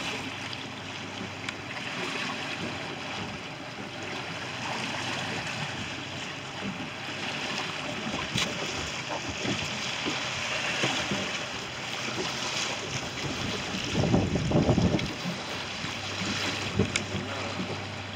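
Wind and choppy sea water washing around a small open boat, a steady rush, with a louder low rumble about fourteen seconds in.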